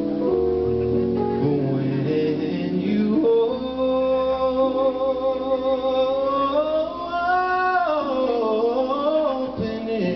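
Male vocalist singing live with a band, electric guitar and chords underneath. He holds one long note through the middle, then slides it up and back down in a run near the end.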